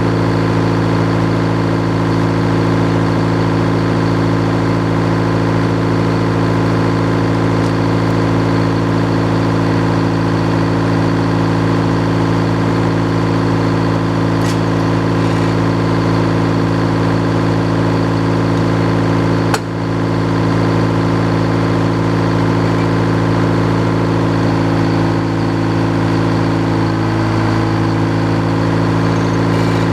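Sawmill engine running steadily at a constant speed, with a single sharp click about two-thirds of the way through.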